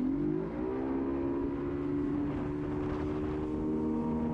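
Small fishing boat's outboard motor throttling up, its pitch rising over the first second, then running steadily under way.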